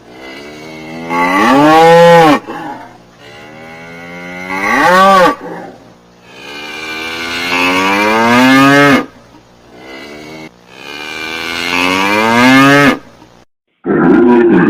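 Cow mooing: four long moos in a row, each rising in pitch and dropping away at its end, with short pauses between them, and another moo starting near the end.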